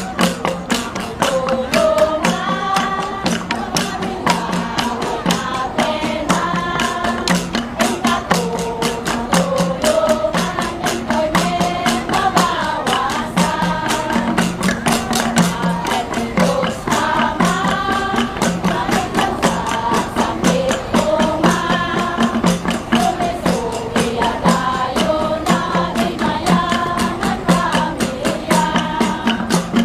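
A group of voices singing a salidummay song together over a fast, even beat of struck Kalinga gongs.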